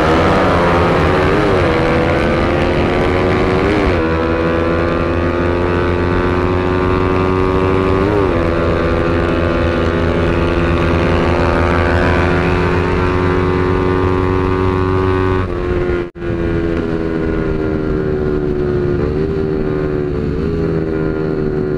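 Honda Sonic 150R's single-cylinder engine running hard at speed, its pitch climbing with a few brief dips, then slowly falling in the last few seconds as the throttle eases. The sound drops out for a moment about sixteen seconds in.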